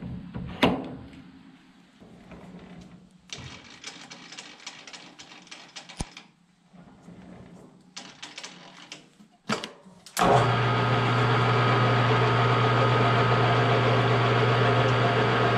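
Clicks and knocks of a metal lathe's tool post and handles being set by hand. About ten seconds in, the Grizzly G0776 lathe starts suddenly and runs steadily with a low hum, its chuck spinning.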